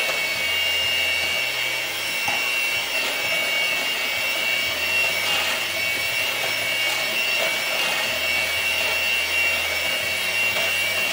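Electric hand mixer running steadily, its beaters whisking pumpkin pie filling in a metal mixing bowl.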